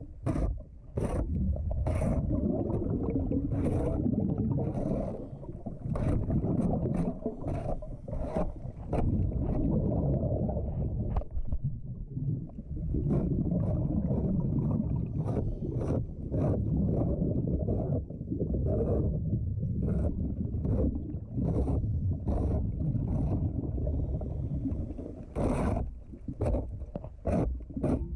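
Underwater sound of a diver scraping shell growth off a timber boat hull: a muffled rumble of the diver's air bubbles that eases off every few seconds, with frequent sharp clicks of the scraper against the hull and shells.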